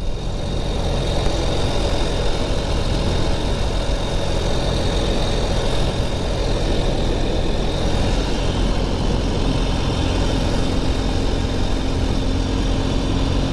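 Ural sidecar motorcycle's air-cooled boxer twin engine running steadily while cruising, mixed with road and wind noise.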